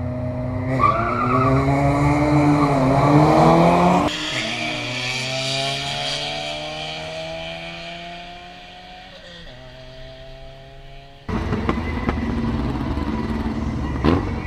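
Two drag cars launching hard from the start line, their engines revving up through the gears and fading as they run away down the strip. About eleven seconds in, this gives way suddenly to the next pair of cars running at the line.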